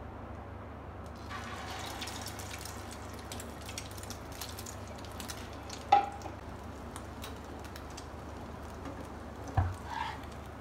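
Egg-coated potato cutlet shallow-frying in oil in a nonstick pan, a steady crackling sizzle that starts about a second in. There are two sharp knocks, one about six seconds in and another near the end as a metal spatula strikes the pan.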